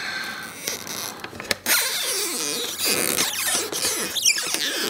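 Adhesive being peeled and stretched as a tablet battery is pried and pulled free of its glue. It makes a steady creaking, scraping sound with wavering squeaks from about a second and a half in, and a sharp rising-and-falling squeak near the end.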